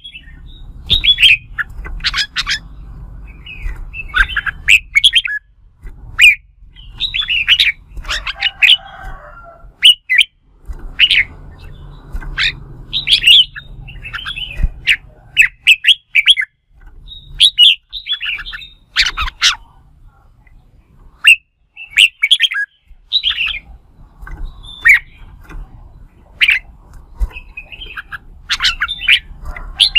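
Red-whiskered bulbuls singing in competition: short, loud, chattering song phrases, one after another every second or so, with a low hum underneath.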